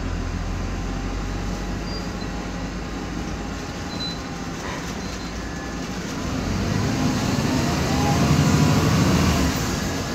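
Cabin noise of a MAN Lion's Classic CNG city bus under way: a steady drivetrain drone that swells louder from about six seconds in, with a faint gliding whine, and eases off near the end. The drivetrain is one the owner calls a noisy ZF Ecomat differential.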